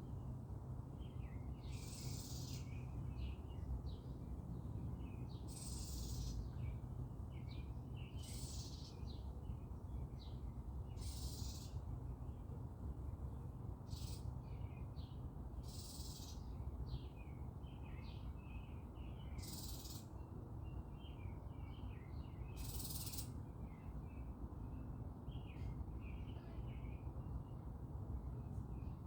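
Small birds chirping and twittering throughout, with a short high hissing burst about every three seconds and a steady low rumble underneath.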